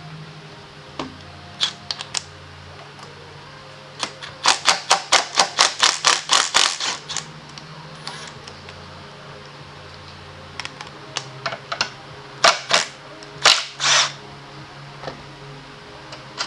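Hand tools at work on metal: a quick run of sharp clicks, about five a second, typical of a ratchet, then a few separate clicks and short bursts near the end.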